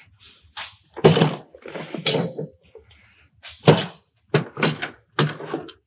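Hand tools and a plastic drill-bit case being handled and packed into tool bags: a string of clunks and rattles. The loudest clunk comes about a second in, and a run of quick clicks near the end.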